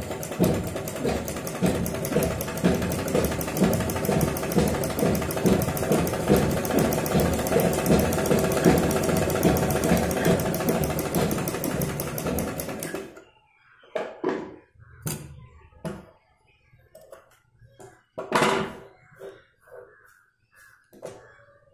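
Mechanical sewing machine stitching a seam in cotton fabric: a steady, rhythmic clatter that stops abruptly about 13 seconds in. Then scattered clicks and knocks, one louder knock a few seconds before the end.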